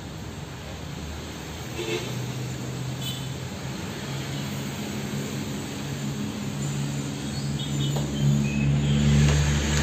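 A motor engine running steadily, getting louder toward the end, with a few faint short chirps above it.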